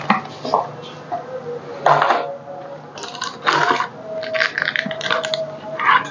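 Kitchen handling sounds: utensils, containers and spice packets clinking and rustling in irregular bursts as masala is added to a bowl of cream, most of it in the second half.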